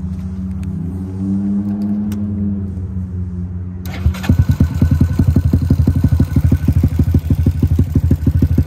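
Honda Grom's 124 cc single-cylinder engine idling through a Yoshimura RS-9T dual titanium exhaust, with a slight rise in engine speed between about one and three seconds in. About four seconds in it becomes louder and choppier, with each exhaust pulse heard separately from the twin mufflers.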